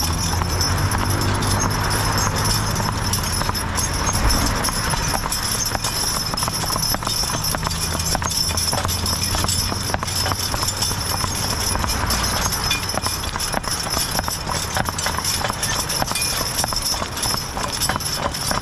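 Hooves of a team of two Belgian draft horses clip-clopping on asphalt at a walk while pulling a rig. A low steady rumble of passing road traffic runs under the hoofbeats through roughly the first half, then fades.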